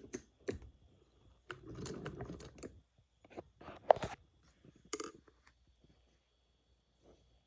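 Cloth rustling and crinkling as it is handled and positioned under a vintage sewing machine's presser foot, with scattered irregular clicks and one sharp click about four seconds in.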